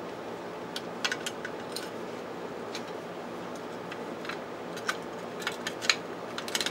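Irregular small metallic clicks and ticks from fingers handling the brass contact arm, resistor coils and spring inside an opened sewing-machine foot control. The clicks come more often in the second half.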